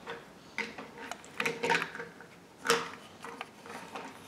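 Handling of a toy train's packaging: a few light knocks and rustles of cardboard and plastic.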